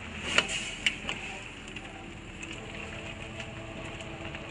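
A ladle stirring soup in a steel wok: a few light clinks against the pan in the first second or so, then a steady low hiss.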